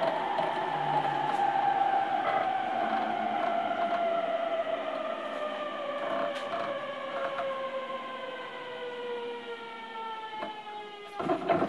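Traction motors of a JR East E231-series electric train whining under the floor, several tones falling steadily in pitch as the train slows before a station stop. The whine fades out near the end and a short cluster of knocks follows.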